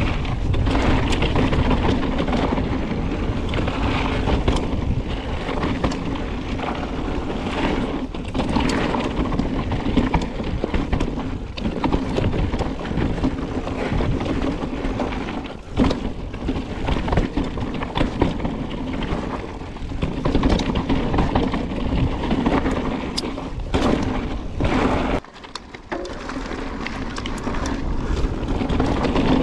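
Mountain bike ridden fast over a dirt and gravel trail: a steady rush of wind and tyre rumble with frequent knocks and rattles from the bike over bumps. It drops briefly quieter about 25 seconds in.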